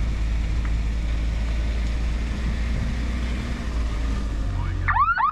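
Vehicle engine running steadily as it drives along a gravel road, heard from inside the cab. Just before the end, a few quick rising chirps cut in.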